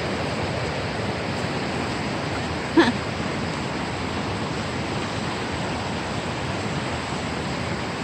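River current rushing steadily: an even noise of fast-flowing water. About three seconds in, a brief, loud pitched sound cuts through it.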